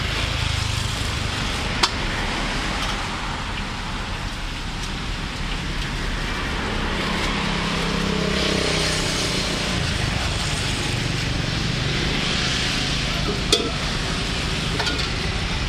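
Battered fruit pieces deep-frying in a large wok of oil, giving a steady sizzle, with road traffic going by. Two sharp metallic clicks come about two seconds in and again near the end.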